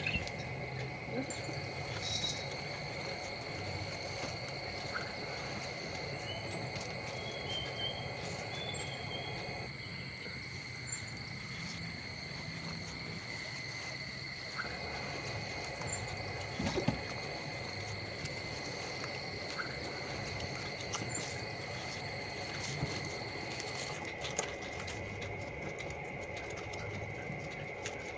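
Faint crinkling, rustling and tapping of foil-backed origami paper as it is creased and handled by hand. The crackles grow denser near the end, over a steady high-pitched whine.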